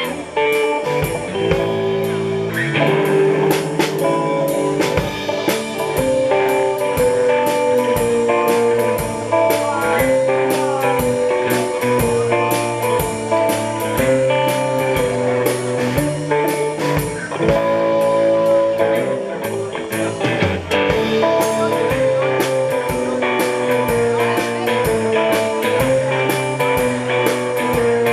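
Live blues-rock trio playing an instrumental passage with no vocals: electric guitar and canjo over a drum kit keeping a steady beat.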